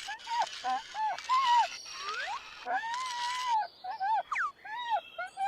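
Cartoon sound effects: a quick run of short, arching chirp-like calls, with a few rising whistle glides over a light background hiss.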